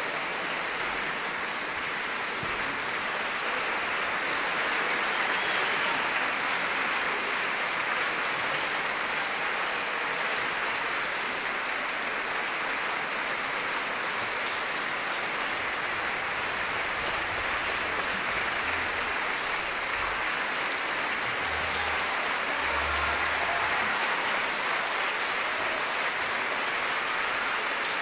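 A concert audience applauding steadily.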